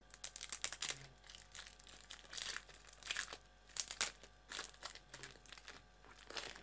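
Clear plastic wrapper and red wax coat of a Babybel cheese crinkling and tearing as they are peeled off by hand, in a run of irregular crackly rustles.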